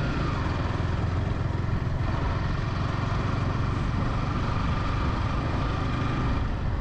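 Motorcycle engine running while riding along, with wind and road noise over the microphone. The engine note dips slightly just after the start, then holds steady.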